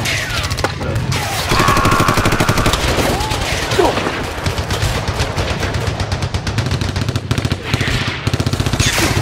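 Battle sound effects: sustained rapid machine-gun fire with overlapping gunshots, continuous throughout.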